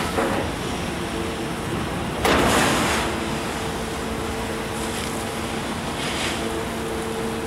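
Kobelco hydraulic excavator's diesel engine running steadily under load with a steady hum of tones as it works the bucket. A loud rushing burst lasting under a second comes about two seconds in, with fainter short rushes later.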